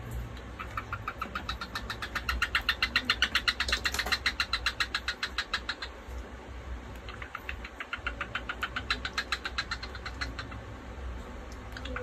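Cockatiel at a mirror making rapid clicks, about ten a second, in two long runs with a short break between them.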